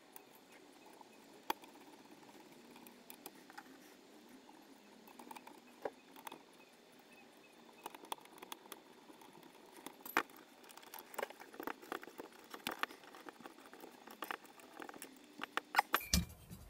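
Light metallic clicks and clinks of small screws and aluminium servo brackets being handled as screws are driven in with a screwdriver. The clicks are sparse at first and come more often and louder in the last several seconds.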